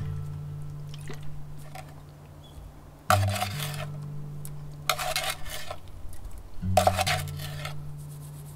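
A spoon scooping sugar and tipping it into an enamel bowl, heard as three short bursts of scraping and clinking about two seconds apart. Behind it runs background music with a low held bass note that changes pitch every few seconds.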